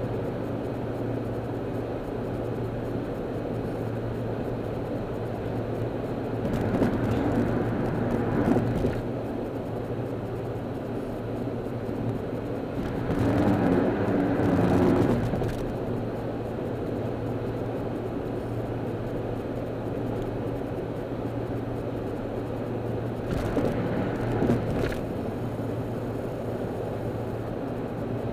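Steady road and engine noise inside a moving car on the freeway: a low, even hum under tyre rush. The noise swells louder three times, about a quarter, half and six-sevenths of the way through.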